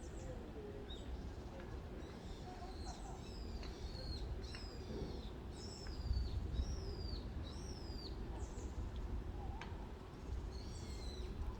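A bird calling: a string of short, high notes, each sliding downward, repeated about twice a second for several seconds, with a few more near the end.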